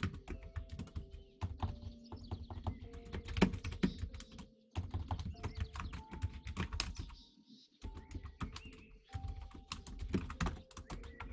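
Typing on a computer keyboard: rapid runs of key clicks with short pauses between them.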